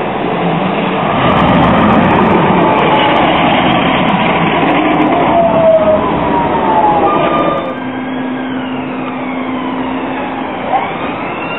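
A Bombardier CR4000 tram on Croydon Tramlink passes close by and pulls into the platform. First comes a loud rumble of steel wheels on rail. After about seven and a half seconds it falls away to a steady electric hum, with the drive's whine gliding down in pitch as the tram brakes.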